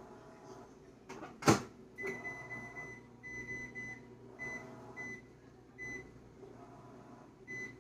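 Microwave oven: a loud click from the door, then a run of high electronic beeps, two long and then four short, as more cooking time is keyed in to pre-cook potatoes.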